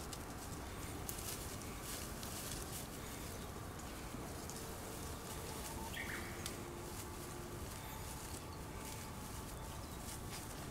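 Steady outdoor background hiss with scattered faint rustles and clicks, and one brief faint high call about six seconds in.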